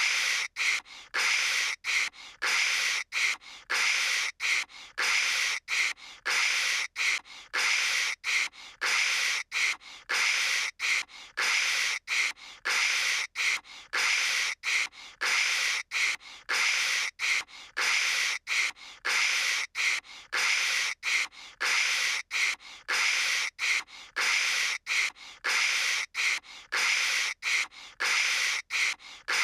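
A voice imitating phone static with the mouth: a hissing "kshh" noise in short bursts, about two a second, broken by brief gaps.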